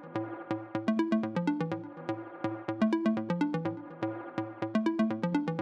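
Background electronic music with a steady beat and a repeating pattern of short pitched notes.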